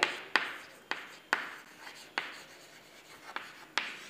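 Chalk writing on a chalkboard: about seven short, irregular strokes, each starting with a sharp tap and tailing off.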